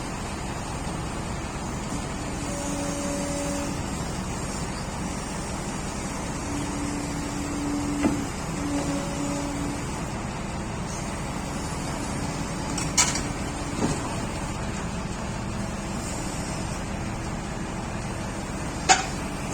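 Hydraulic excavator's diesel engine running steadily, with a pitched hydraulic whine that comes in twice and several sharp clanks as the machine works its way onto a truck deck.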